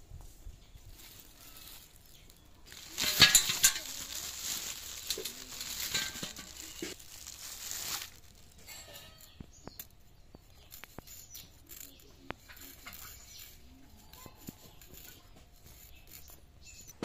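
A thin plastic bag rustling and crinkling for about five seconds as fish roe is shaken out of it into a stainless steel bowl, with a few sharp clicks near the start. After that, only faint scattered clicks.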